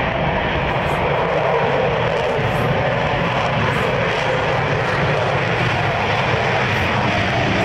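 Loud, steady jet engine noise of a Convair F-106 fighter jet, dubbed in as a comic sound effect standing for a fart.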